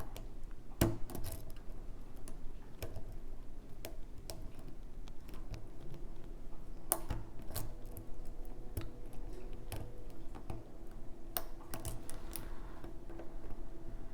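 Small irregular metal clicks and ticks of a lock pick working the pins inside a challenge lock under tension, over a faint steady hum.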